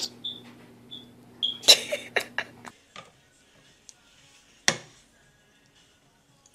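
A toddler's short high squeals and a loud burst of squealing vocal sound while biting into a lemon, over a steady low hum that stops about three seconds in. After that it is much quieter, with one short sharp sound near the end.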